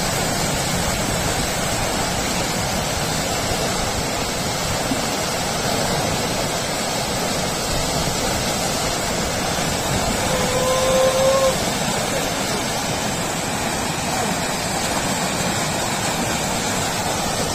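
Rocky river rapids rushing steadily over boulders, a continuous even wash of white water.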